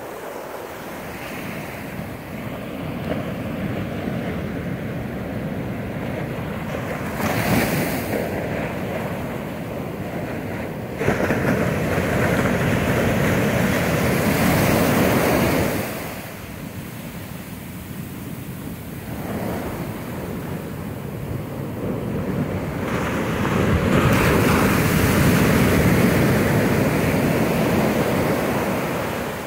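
Ocean surf breaking and washing up a sandy beach in slow surges, loudest about halfway through and again near the end, with wind buffeting the microphone.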